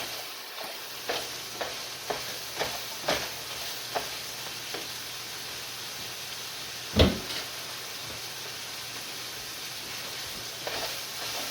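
Meat frying in a pan: a steady sizzle, with light clicks every half second or so in the first few seconds and one solid thump about seven seconds in.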